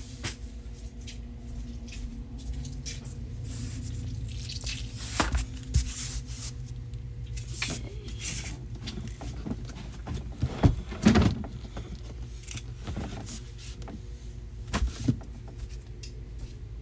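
Objects being handled: irregular knocks and rustles, loudest in a cluster about ten to eleven seconds in, over a faint steady hum.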